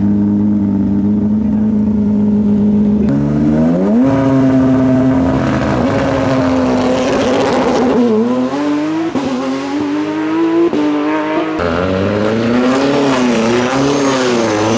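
Porsche 991's flat-six engine holding steady revs on the start line, stepping up and holding higher revs a few seconds in for a launch-control start. It then pulls away, the revs climbing and breaking off several times as it shifts up through the gears.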